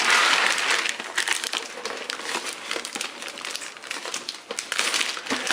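Packaging crinkling and crackling as the boxed keyboard is pulled out of its wrapping, loudest at the start and continuing in smaller crackles.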